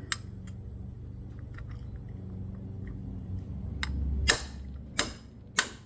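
Three sharp hammer blows on a 30 mm socket, about half a second apart near the end, driving an axle snap ring into its groove; the first is the loudest. Before them there is a steady low hum with a few faint ticks.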